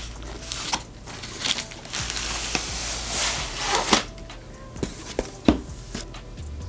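Keyboard packaging being handled: rustling, with a few sharp knocks, over quiet background music.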